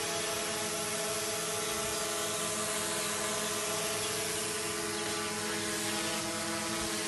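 DJI Mavic Pro quadcopter hovering, its propellers giving a steady high buzz with a few held tones.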